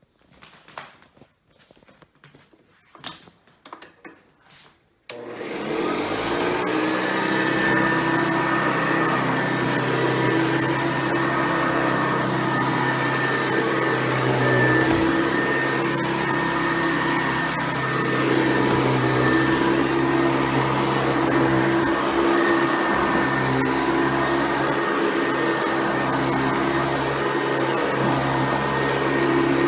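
A few light knocks, then about five seconds in a Hoover Convertible upright vacuum cleaner is switched on. Its motor spins up over a second or two and runs steadily with a whine.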